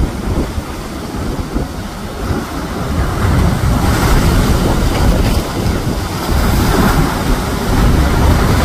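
Sea surf breaking and washing over the granite rocks of a seawall, with wind buffeting the microphone in a low rumble. The surf grows louder about three seconds in.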